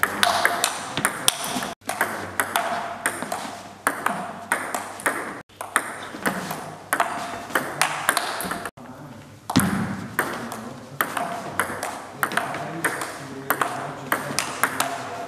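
Table tennis rally: the ball clicking off the bats and bouncing on a Joola table in quick alternation, a few sharp clicks a second. The sound drops out briefly three times.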